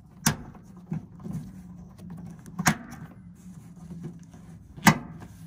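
Plastic clips of a new outer weatherstrip on a Toyota pickup's door snapping into their holes along the top of the door: three sharp snaps about two seconds apart, with fainter clicks between.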